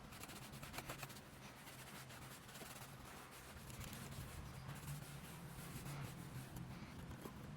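A cloth dampened with alcohol rubbing over a laptop's casing: faint, scratchy wiping with a few light clicks, over a low steady hum.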